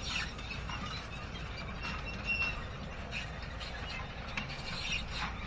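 Manure spreader working: irregular squeaks and clicking rattles from its moving parts over a steady low rumble, with one brief high squeal a little past the middle.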